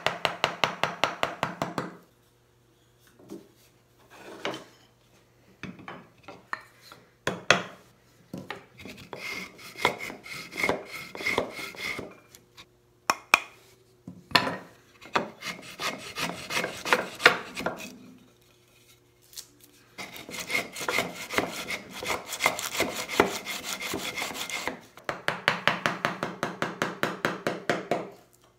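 Hand-tool work on a walnut box recess: quick runs of light mallet taps on a chisel near the start and again near the end. In between come scraping, paring strokes from the chisel and a wooden hand router plane.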